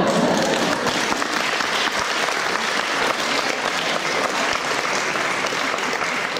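Audience applauding: steady, dense clapping throughout.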